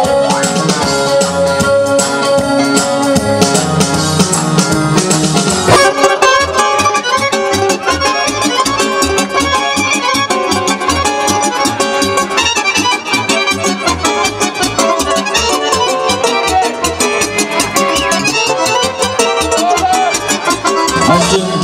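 Accordion playing Balkan Romani dance music live, with a steady beat. The music changes abruptly about six seconds in.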